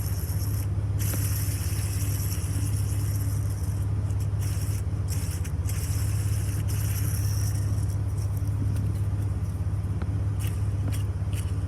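Jeep Wrangler TJ engine running steadily, with the noise of its serpentine belt tensioner mixed in; the tensioner is faulty.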